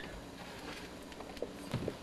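Faint room tone with a few soft footsteps in the second half, the last ones near the end the loudest, as the person holding the camcorder walks off.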